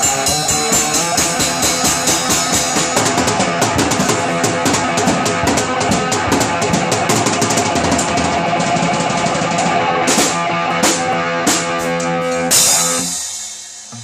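Rock band music with a driving drum kit and electric guitar, closing with a few separate drum hits and a final crash about twelve and a half seconds in that rings out and fades away.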